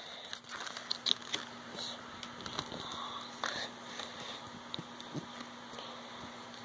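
Soft rustling and scattered light clicks of a Lego set's box contents, paper and plastic bags, being handled and sorted through.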